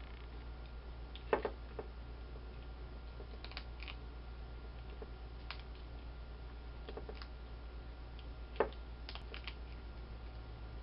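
A skunk chewing dry cat food: scattered, irregular crisp crunches, with two louder ones about a second and a half in and about eight and a half seconds in. A steady low hum runs underneath.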